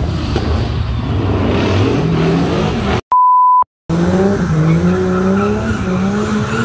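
Car engine revving with tyres squealing, as in a burnout. About three seconds in it is cut by a brief gap holding a half-second steady electronic beep, then the revving and squealing resume.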